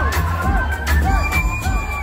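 Loud dance music with a heavy bass and a repeating melodic line, playing at a packed dance party.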